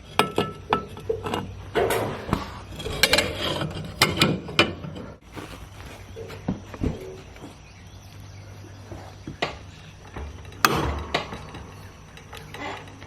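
Metal tool clicks and clanks of a 15/16 socket wrench working a mower blade nut loose under a SCAG zero-turn deck, with a blade-holding tool clamped on the blade. The clicks come thick and fast for the first few seconds, then turn sparse, with one sharp knock near the end.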